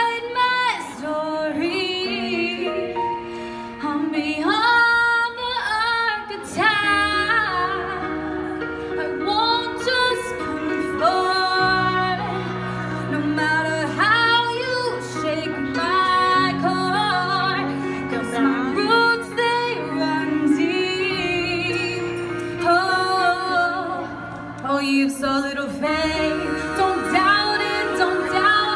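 A woman singing a pop song live into a handheld microphone over a recorded backing track, amplified through the venue's sound system. The bass and fuller accompaniment come in about seven seconds in.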